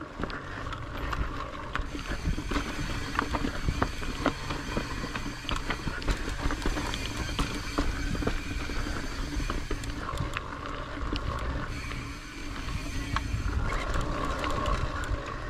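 Mountain bike being ridden over rocky trail: a steady low rumble of wind and tyres, with frequent sharp rattles and knocks from the bike over rocks.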